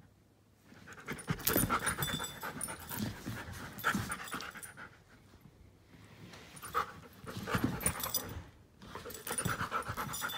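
Giant schnauzer panting close to the microphone, in several bouts of rapid breaths with short pauses between.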